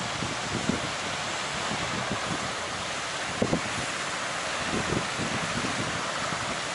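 Heavy surf breaking and churning, a steady roar of wash, with wind buffeting the microphone in a few short low gusts.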